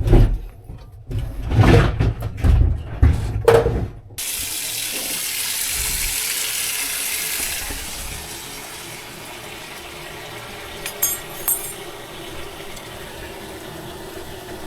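Clatter and knocks for about four seconds, then water suddenly starts running from the newly fitted balcony faucet, strongest at first and settling to a lower steady flow, with two short clicks near the end.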